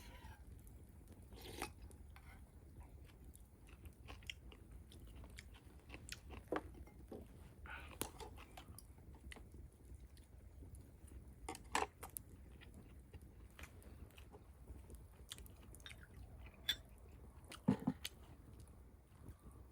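A person chewing and eating food close to the microphone, with scattered sharp clicks, the loudest about 12 and 17 seconds in.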